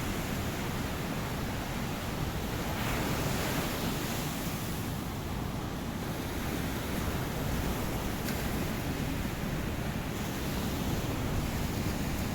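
Ocean surf: a steady wash of breaking waves, swelling a little about three seconds in and again around five to six seconds.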